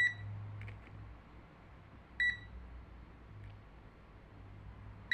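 Crown CT44052 digital multimeter's buzzer giving three short, high single beeps, about two to three seconds apart, with a faint click or two between them.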